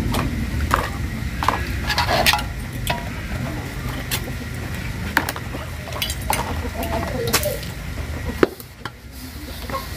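Dishes washed by hand in buckets and a basin: a glass and metal pans clink and knock against the containers between sponge scrubbing and splashing water, with one sharper knock about eight and a half seconds in.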